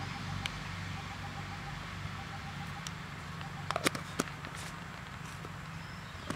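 A few sharp clicks of plastic spice jars and a plastic spoon being handled, a cluster a little under four seconds in and one more near the end, over a steady low background hum.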